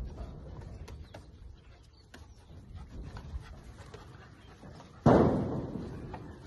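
Several puppies scrambling and scuffling about, with a sudden loud bang about five seconds in that fades over a second.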